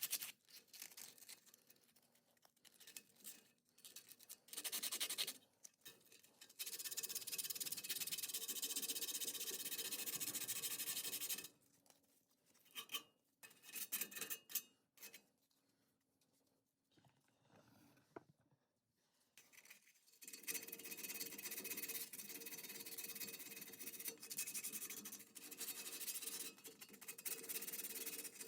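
Rusty sheet-steel body panel being sanded by hand to clean off surface rust: long stretches of steady rasping strokes, with a pause in the middle holding a few light knocks.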